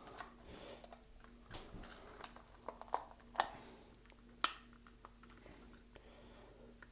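Scattered small clicks and taps of a screwdriver working a stripped screw in a plastic toy speaker box, with the sharpest click about four and a half seconds in. A faint steady hum sits underneath.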